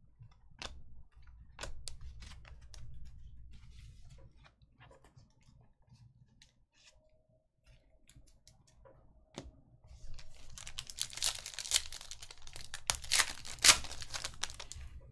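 Light clicks and taps of trading cards being handled, then from about ten seconds in the crackly tearing and crinkling of a foil trading-card pack wrapper being ripped open.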